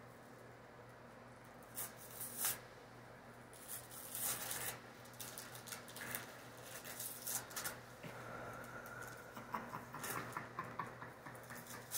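Wrapping paper crinkling and tearing in short irregular bursts as a small child pulls it off a present, starting about two seconds in.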